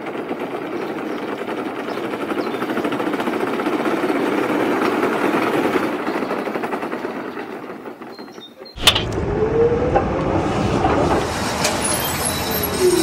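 Tram running on rails: a steady wheel-on-rail rumble that swells and then fades. About nine seconds in a sharp click breaks in, then a lower rumble with a few short squeals.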